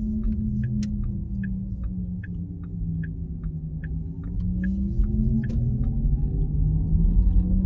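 Inside a Porsche Taycan GTS cabin: the car's synthesized electric drive sound hums steadily over road rumble, dipping in pitch a few seconds in and then rising again as speed changes. The turn-signal indicator ticks evenly, tick-tock, until about five and a half seconds in.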